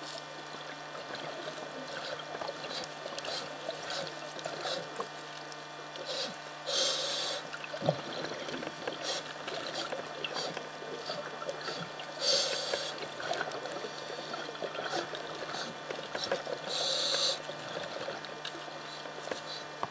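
Scuba diver's regulator exhaling: three bursts of bubble hiss about five seconds apart, each lasting about half a second. Under them are a steady low hum and many faint clicks.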